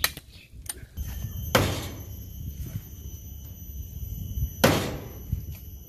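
Large SK85-steel cleaver chopping into a green tree branch: a light knock at the start, then two hard chops about three seconds apart.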